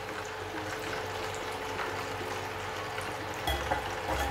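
Hot cooking oil sizzling and crackling steadily in a wok, with a low bump about three and a half seconds in.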